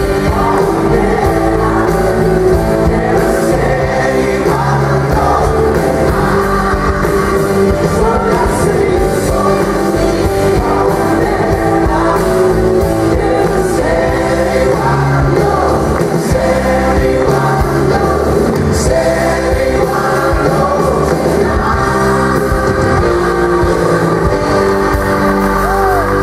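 Live pop-rock band with electric guitars, bass, piano and a choir playing a song, with singing over the band; steady and loud throughout.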